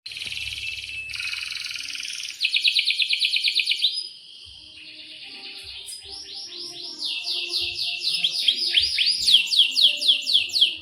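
Domestic canary singing a long, varied song. It opens with buzzy trills, then a fast run of repeated notes at about ten a second, then a quieter trill. It ends in a loud string of notes that each fall in pitch, about four a second.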